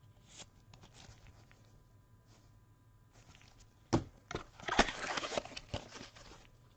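Trading cards and their packaging being handled on a table: faint scattered ticks, a sharp tap about four seconds in, then about two seconds of rustling and scraping with a few sharp clicks.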